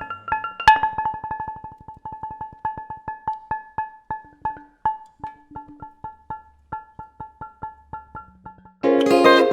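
Music: a rhythmic run of struck notes, each ringing at the same pitch and slowly spreading apart, over low held notes. A fuller, louder arrangement comes in near the end.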